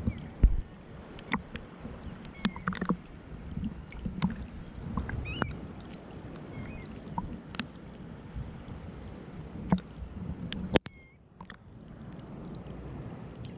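Sea water sloshing and splashing close to the microphone, with scattered sharp ticks. A hard knock comes near the end, after which the water sound drops briefly.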